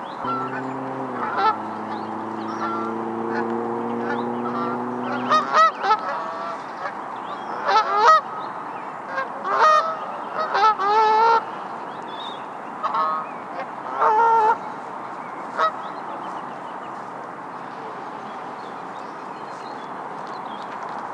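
Geese honking: a run of short calls starting about five seconds in and dying out by about sixteen seconds, over a constant background hiss. A steady low hum sounds for the first five seconds.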